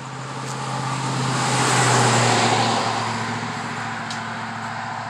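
Zero-turn riding mower's engine running steadily. It swells to its loudest about two seconds in, then eases back down.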